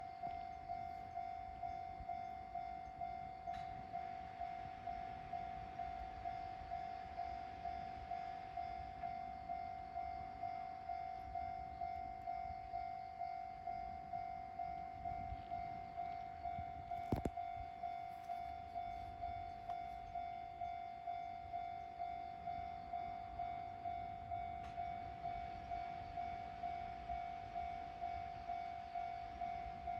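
Japanese railway level-crossing warning bell ringing, a single electronic tone repeating in even dings a little over two a second. A single sharp knock sounds about seventeen seconds in.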